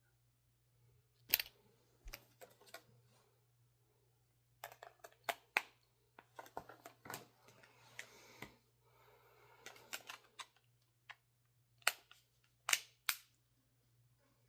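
Scattered sharp clicks and taps of small hard items being handled, with light rustling and scraping in the middle and the loudest clicks near the end, over a faint steady hum.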